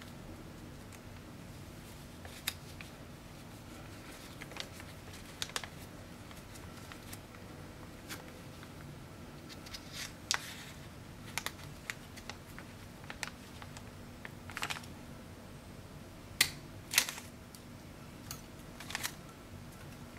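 Irregular clicks and short crinkly rustles from a plier-type hand hole punch and a clear plastic poly bag being handled, over a steady low hum. The two sharpest clicks come a few seconds before the end.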